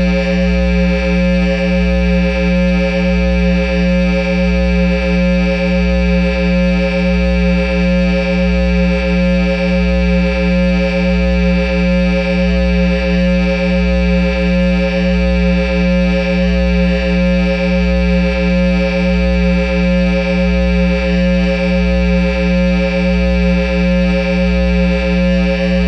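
A loud, steady, low droning tone from a bass amplifier and speaker cabinet, held without change. It beats in a slow even pulse, a little under one and a half times a second.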